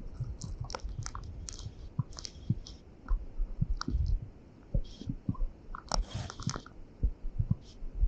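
Raindrops tapping irregularly on the camera and its microphone in storm rain, over a low rumble of wind buffeting the microphone.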